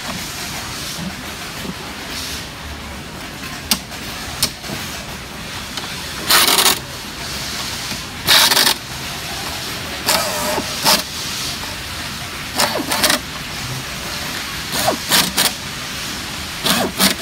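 Pneumatic driver run in short bursts, driving bolts into a recliner's metal frame. Two longer bursts of about half a second come about six and eight seconds in, followed by strings of shorter bursts and clicks.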